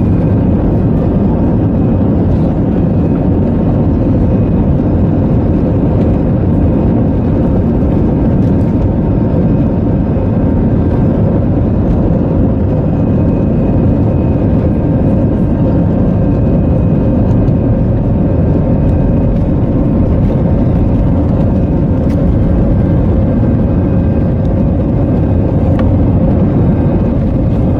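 Cabin noise over the wing of an Airbus A320 on its takeoff run: a loud, steady engine drone with several steady whining tones over a deep rumble.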